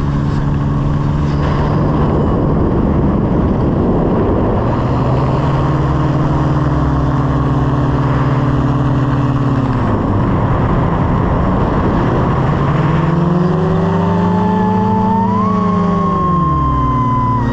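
Light aircraft engine running over a steady rush of air. Its pitch dips and recovers twice, about ten seconds in and again near the end, and a higher whine joins in the second half.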